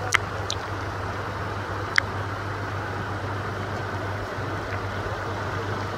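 Low, steady hum of an idling vehicle engine under a constant rush of wind and rain noise, with sharp ticks just after the start and about two seconds in.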